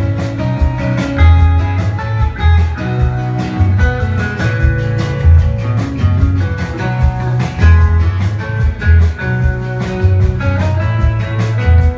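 Live band playing a song: strummed acoustic guitar and electric guitars over a drum kit, with a steady beat.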